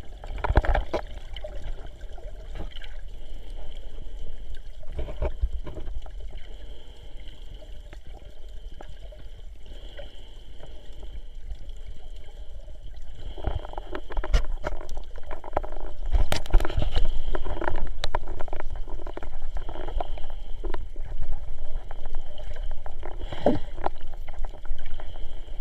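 Muffled underwater water noise picked up by a camera held below the surface while snorkelling: sloshing and gurgling with irregular small knocks and swirls, growing louder about halfway through.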